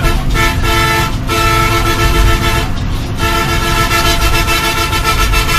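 Bus horn sounding in three blasts, the last and longest held about two and a half seconds, over the steady low rumble of the engine and tyres. It is heard from inside a bus overtaking another bus at highway speed, warning it of the pass.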